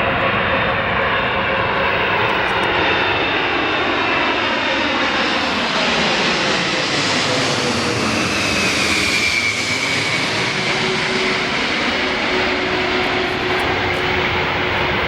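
Large Antonov cargo jet's engines running loud as it flies past, a whine and hum in the engine noise dropping in pitch as it passes, about two-thirds of the way through.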